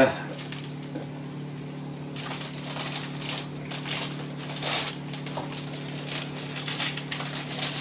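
Crinkling and rustling of packaging with scattered light clicks as a boxed set of Japanese dovetail chisels is unwrapped and handled, over a steady low hum.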